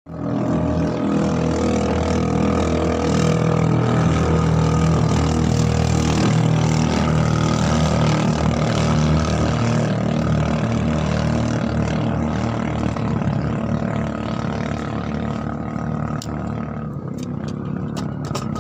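Small boat engine running steadily at speed, easing slightly toward the end.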